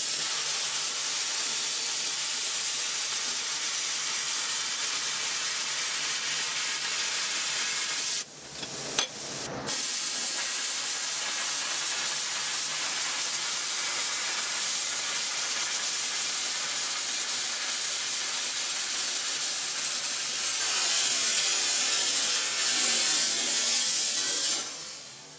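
Plasma cutter cutting quarter-inch steel plate: a steady hiss that breaks off briefly about eight seconds in, then resumes, growing louder for the last few seconds before cutting off near the end.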